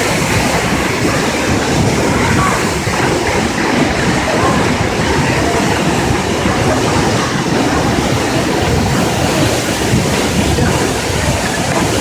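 Waterfall pouring with a steady, loud rush of water.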